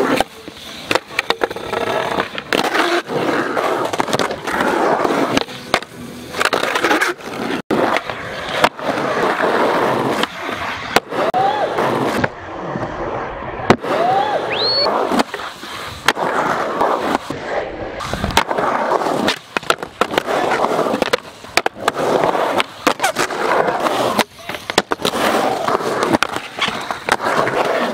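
Skateboard wheels rolling on concrete, broken by many sharp clacks of boards popping and landing. The sound jumps abruptly every few seconds.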